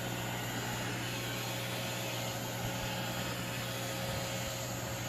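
iRobot Roomba 655 robot vacuum running steadily as it cleans, its motor giving an even whir with a low hum.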